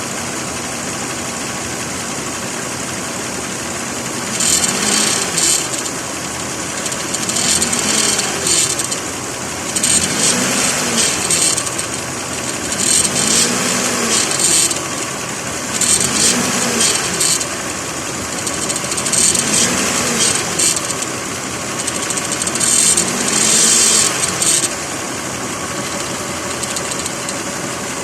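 3.3-litre 3MZ-FE V6 of a 2006 Lexus ES 330 idling steadily, broken about every three seconds by a burst of harsh metal-on-metal grinding from the alternator area. The noise comes from an oversized upper alternator bracket bolt that never threaded fully home, leaving the alternator bracket loose.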